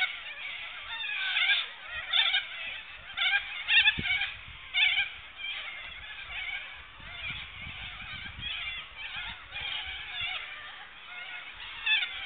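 A flock of cockatoos calling: a steady din of harsh, overlapping screeches, with the loudest calls bunched in the first five seconds and again near the end.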